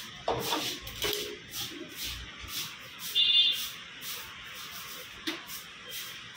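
Meat cleaver chopping chicken pieces on a wooden chopping block, a sharp chop about twice a second. A short high-pitched squeal about three seconds in is the loudest sound.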